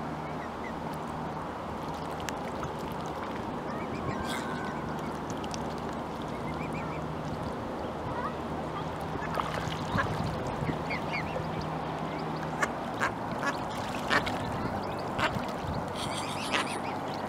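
Mallard ducks quacking, with a run of short, sharp quacks in the second half.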